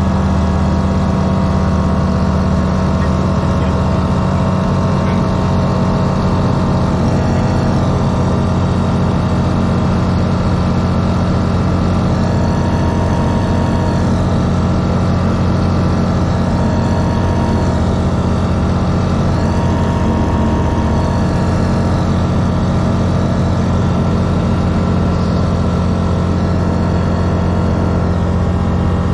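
Rotax 912 four-cylinder boxer engine and constant-speed MT propeller of a Grob G109B motor glider droning steadily in flight, heard from inside the cockpit.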